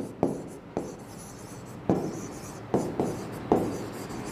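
Pen writing on the screen of an interactive display board: a run of short, irregular taps and scratches as a word is written.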